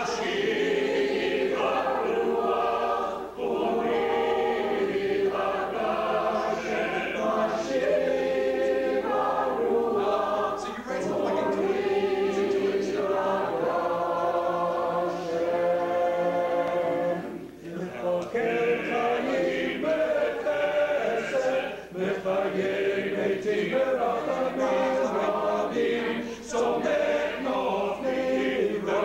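A choir singing a cappella in rehearsal, in sustained phrases with short breaks between them.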